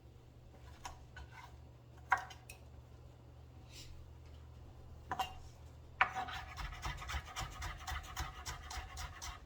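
Kitchen knife cutting scallions on a cutting board: a few separate knocks at first, then about six seconds in a fast, steady chopping of several strokes a second as the scallions are finely diced.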